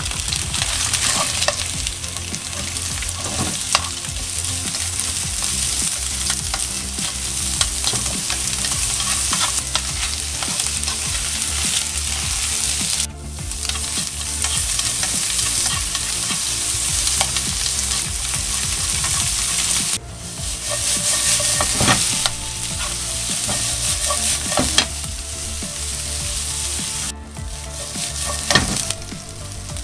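Sliced pork and onion sizzling in a frying pan as they are stir-fried with chopsticks, with scattered short clicks. The sizzle breaks off for a moment three times.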